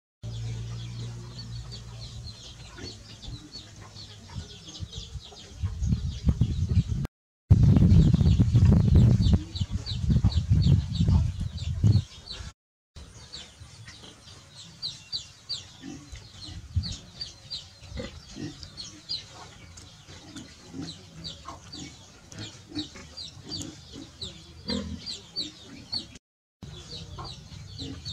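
Farmyard chickens clucking, with many short high chirps repeating throughout. A loud low rumble lasts several seconds about a quarter of the way in. The sound cuts out briefly three times.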